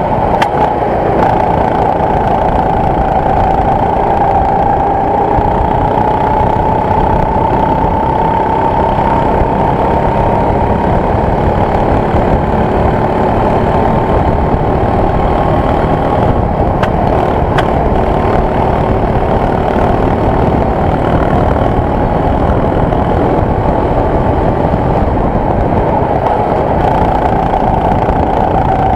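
Go-kart engine running at speed, heard from on board the kart: a steady, loud drone whose pitch drifts up and down a little with the throttle, over a rushing noise.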